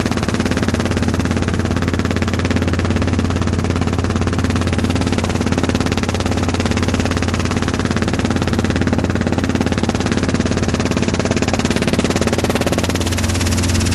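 Robinson R22 helicopter in flight, heard from inside the cabin: the four-cylinder Lycoming piston engine and main rotor make a loud, steady drone with a regular throb. It grows slightly louder about a second before the end.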